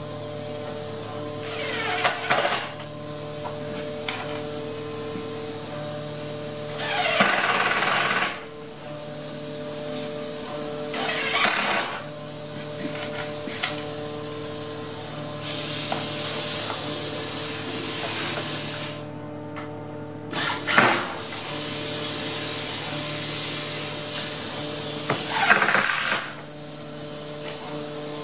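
Power screw gun driving screws through door hinges into a wooden jamb, in about six separate runs of one to three seconds each.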